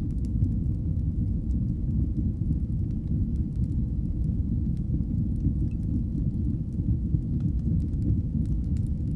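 Fireplace fire burning with a steady low rumble, dotted with sparse faint crackles and pops.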